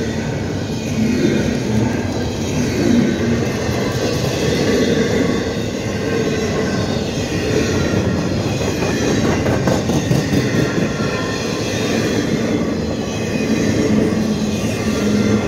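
Union Pacific double-stack intermodal freight cars rolling past close by: a steady rumble of steel wheels on the rails. Faint wheel squeal comes and goes, and a short run of clicks sounds about ten seconds in.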